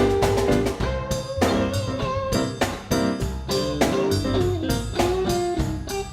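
Band playing an instrumental passage of a blues/R&B shuffle: a guitar line with held and bent notes over bass and a steady drum-kit beat, with no singing.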